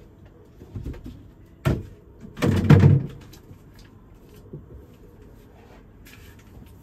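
Knocks and a clatter of things being handled on storeroom shelves: a sharp knock about a second and a half in, then a louder rattling clatter just after, with a few small clicks later.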